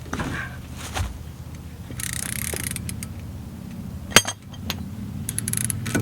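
Mechanical clicking and clanking of hand tools on brake hardware: a short rushing noise about two seconds in, one sharp metallic clank about four seconds in, and a quick run of clicks near the end, over a steady low hum.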